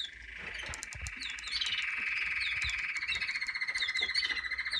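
Canary singing one long, rapid, rattling trill that grows louder about a second and a half in and breaks off near the end, with short high chirps from other birds over it.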